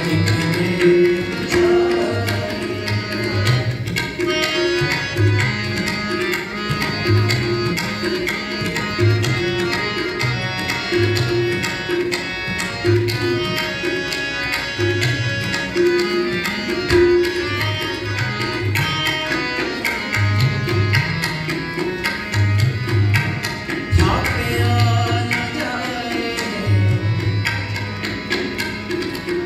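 Sikh kirtan music: harmonium playing with tabla keeping a steady rhythm, the deep bass strokes of the tabla's larger drum recurring throughout.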